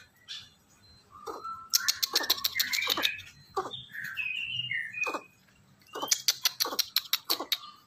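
Albino greater coucal calling in short falling notes and a few higher squeaky notes, with two fast runs of sharp clicks about two and six seconds in.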